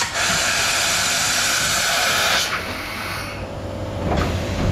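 Automatic tool change on a Mazak Integrex 35 mill-turn machine. A steady hiss of compressed air cuts off about halfway through, followed by low mechanical rumbling and a couple of knocks as the tool changer moves.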